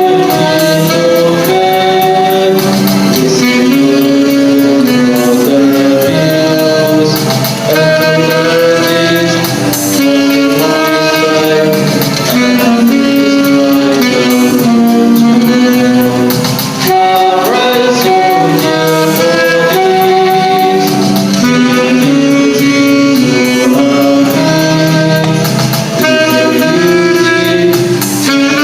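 Music: a live performance of a newly composed anthem, a continuous melody with instrumental accompaniment.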